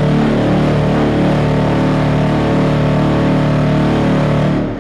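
Earthquake electric dump-body vibrator bolted to a steel dump truck body, running with a loud, steady hum, then switched off near the end and dying away.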